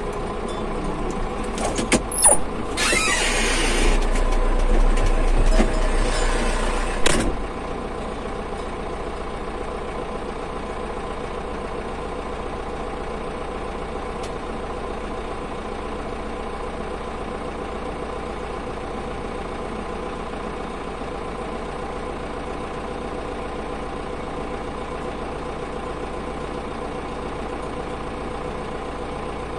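Farm tractor engine running steadily as it drives. From about three seconds in, a louder rushing noise joins it for some four seconds and cuts off suddenly about seven seconds in.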